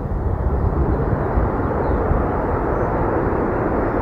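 Jet aircraft engines running, a steady, loud rushing noise with a deep rumble underneath.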